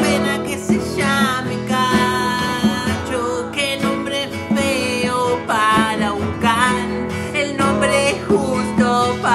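Two acoustic guitars strummed together with a pair of congas, and a voice singing a wavering melody over them.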